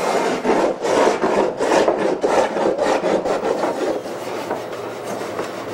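Hand sanding of the wooden hull of a model flying boat: quick back-and-forth rubbing strokes, about three a second, growing softer about four seconds in.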